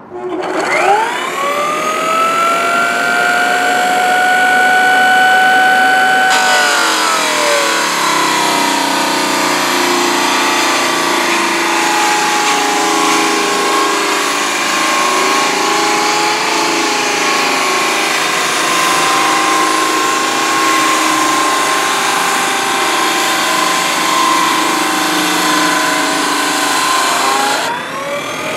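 HireTech HT8-1 drum floor sander's brushed motor spinning up in a rising whine and running steady at its 3200 RPM setting. About six seconds in the pitch drops under load as the 24-grit drum bites into painted plywood, and a harsh steady sanding rasp joins the motor as the paint is stripped. Near the end the rasp eases and the motor whine rises again as the load comes off.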